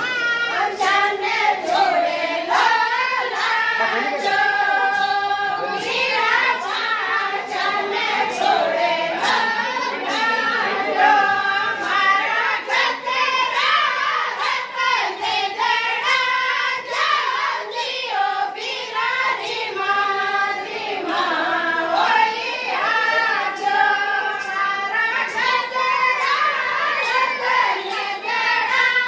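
Group of women singing a Rajasthani Mayra folk song together, the traditional song for the maternal family's gift-giving at a wedding. A steady beat of sharp claps, about two a second, keeps time throughout.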